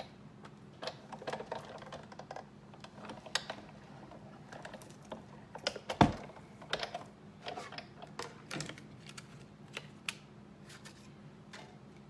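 Scattered light clicks and taps as plastic cutting plates and a magnetic platform are handled and fed through a manual Big Shot die-cutting machine, with one sharper knock about six seconds in.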